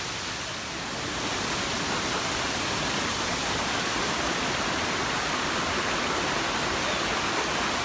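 Waterfall: a steady rush of falling water, growing slightly louder about a second in.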